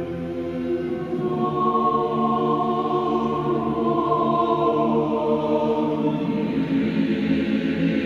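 Mixed a cappella choir singing a slow Serbian Orthodox requiem chant in long, held chords. About a second in, a higher voice part comes in and the sound grows a little fuller.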